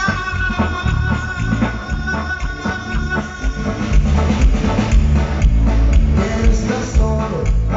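Loud live band playing dance music, with a heavy bass throughout.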